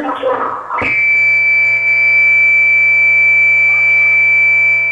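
A short knock about a second in, then a loud, steady, piercing tone of several pitches held together, which holds unchanged until the end.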